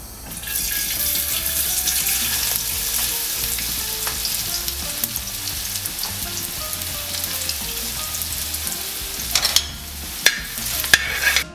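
Julienned ginger sizzling in hot coconut oil in a steel kadai. It starts as the ginger hits the oil and settles into a steady frying hiss, with a few louder scrapes and clinks of a metal spoon stirring against the pan near the end.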